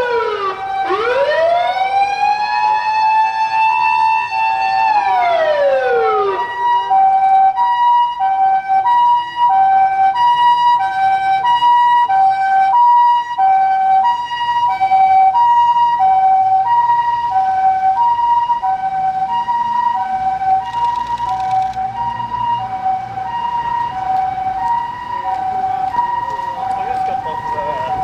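Japanese ambulance siren: a wail sweeps up and down, then about six seconds in switches to the steady two-tone hi-lo "pee-po" alternating between two pitches, which carries on for the rest of the stretch.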